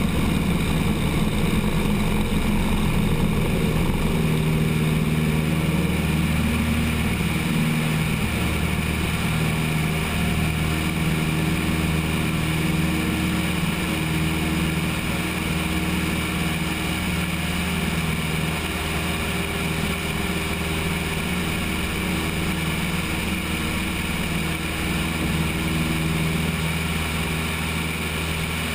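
Cessna 172's piston engine at takeoff power, steady through the takeoff roll and into the climb, mixed with wind noise from the wing-mounted camera.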